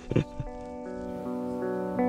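Background music fades in about half a second in: a run of held notes that change every few tenths of a second, slowly growing louder.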